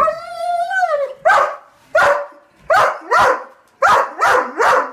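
German shepherd giving a long wavering whine-like cry, then barking about seven times in quick, uneven succession, excited at the prospect of a car ride.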